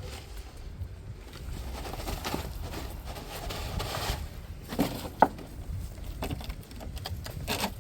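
Hands digging and rummaging through loose potting soil, rustling and scraping in uneven swells, with a sharp knock a little past halfway.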